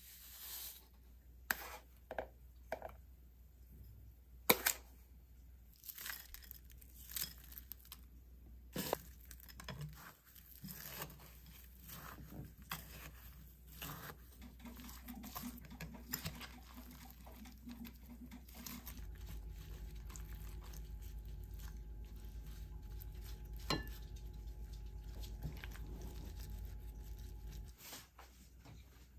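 A plastic spoon stirring a thick chili-flake seasoning in a glass bowl, clinking and scraping against the glass with a run of short, sharp knocks. From about two-thirds of the way in, a steady low hum sits underneath until it stops near the end.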